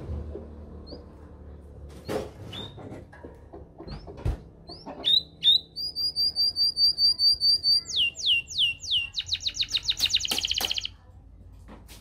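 Canary singing: scattered short chirps, then about halfway through a run of quick repeated high notes, a few falling swoops, and a very fast trill that stops about a second before the end.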